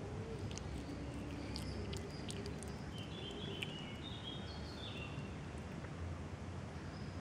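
Kitten chewing wet cat food, with small wet clicks and smacks, over steady low outdoor background noise. Short bird chirps come in around the middle.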